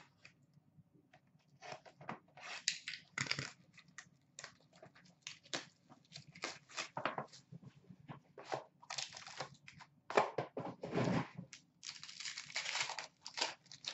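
Wrapping and packaging of a sealed box of hockey cards being torn open and crinkled by hand, in a run of irregular crackling and tearing bursts, loudest about three quarters of the way through.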